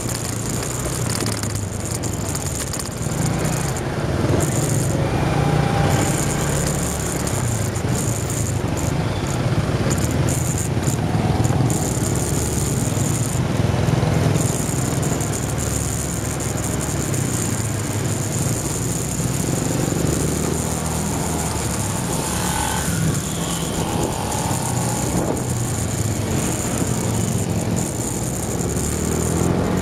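Onboard sound of a motorbike riding in slow town traffic: its engine running steadily, with the noise of the cars and scooters around it.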